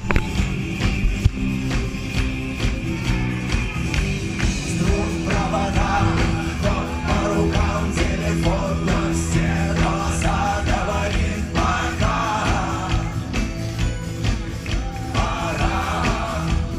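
Rock band playing live, with drums, bass and guitar. A voice sings over it from about five seconds in.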